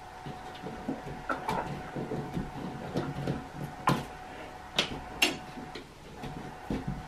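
Hand scraping and rubbing at a plaster ceiling, with scattered sharp knocks and clicks; the loudest come about four and five seconds in. A faint steady hum runs underneath.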